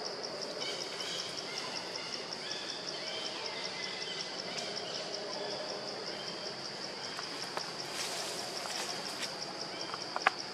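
Insect chirping outdoors in a steady, high-pitched pulse, about four beats a second, with a few sharp clicks near the end.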